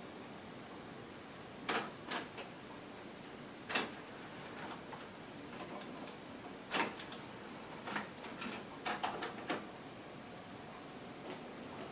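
Pioneer CT-M6R six-cassette changer's tape transport clicking and clunking over faint hiss during a blank stretch of tape, as the deck senses the blank and reverses the tape direction. About nine sharp clicks, spaced out at first, then four in quick succession near the end.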